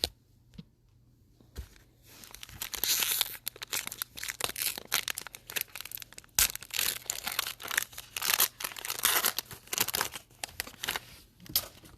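A Donruss football card pack wrapper being torn open and crinkled: a dense run of sharp crackling from about two seconds in until near the end, after a quiet start with a couple of small clicks.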